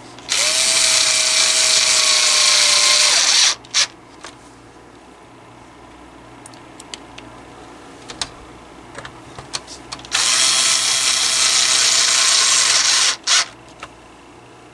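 Electric power screwdriver driving screws in: two runs of about three seconds each, the first with a steady whine that rises at the start, each followed by a short extra burst to snug the screw. Small clicks of loose screws being handled come in between.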